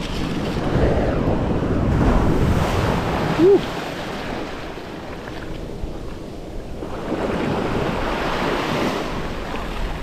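Surf washing up over the wet sand in swells, with wind on the microphone. About three and a half seconds in, one short beep from a Minelab Equinox metal detector.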